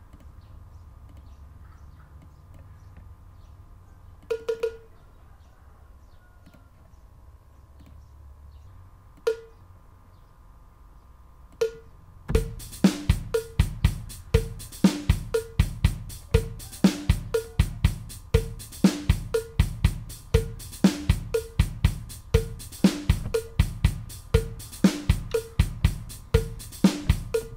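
Virtual drum kit in Addictive Drums 2: a cowbell sample (LP Rock Ridge Rider) auditioned with a few single strikes, then about twelve seconds in a looping programmed drum pattern starts, with kick, snare and steady cowbell strikes, for a Ram Vong dance rhythm.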